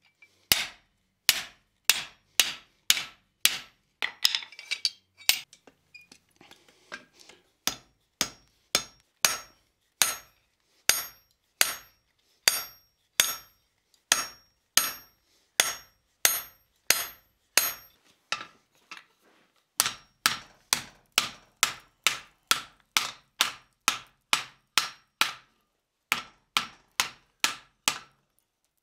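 Hand hammer striking red-hot steel on the anvil, two to three blows a second, each with a short metallic ring: first forging a rivet in a guillotine tool and a heading tool, then, after a brief pause, bending a thick hot bar over the anvil horn.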